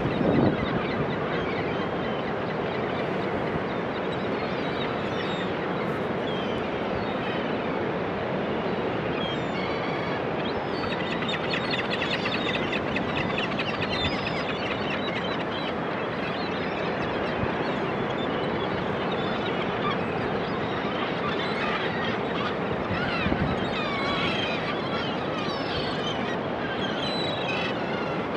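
Steady wash of Pacific surf on a beach, with many seabirds calling over it in short honking calls, thickest midway and again near the end.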